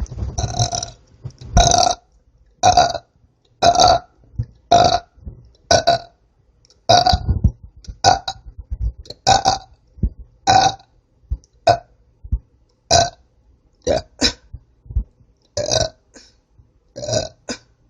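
A woman burping back to back: a long run of short burps, about one a second, with brief silent gaps between them.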